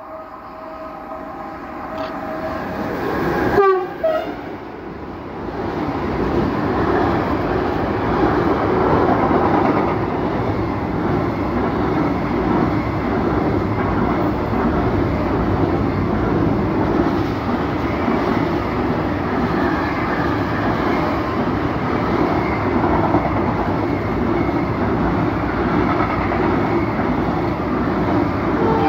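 Electric-hauled intermodal freight train carrying lorry trailers approaching and passing close by. The locomotive's horn sounds briefly about three and a half seconds in, its pitch dropping as it passes. Then a long, steady rumble and clatter of wagons rolling past.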